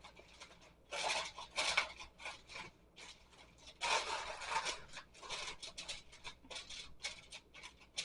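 Heavy-duty aluminium foil crinkling as it is pressed and crimped tightly around the edges of a large catering pan, in irregular bursts that are strongest about a second in and around four seconds in.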